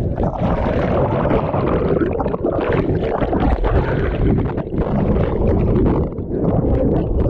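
Churning sea water and bubbles heard underwater through a GoPro in its housing: a loud, muffled rumble with little treble.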